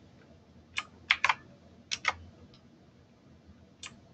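Computer keyboard keys being pressed: about seven separate key clicks, several in quick pairs, with short pauses between them.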